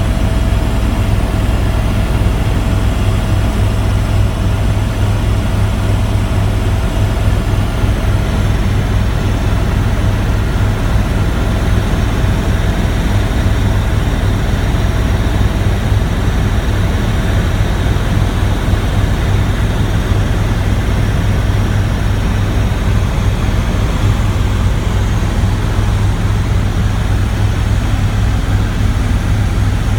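Helicopter in flight: steady, loud turbine and rotor noise with a deep, fast flutter. A faint steady whine fades out about a third of the way in.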